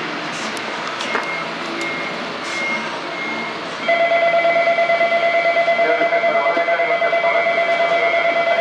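A station's electric departure bell starts ringing about four seconds in: a loud, continuous, fast-pulsing ring with a steady pitch. Before it there are short, repeated high beeps over the background of the station.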